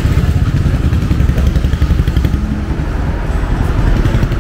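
Motorcycle engine running close by, a loud, low, uneven throb, with roadside traffic.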